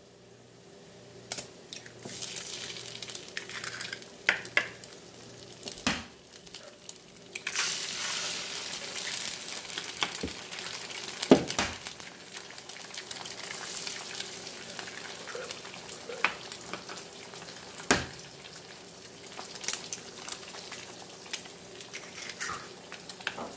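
Eggs frying in a hot nonstick pan in a little leftover bacon fat: a steady sizzle that swells about seven seconds in, as the eggs hit the pan. Several sharp cracks of eggshells being broken against the pan rim.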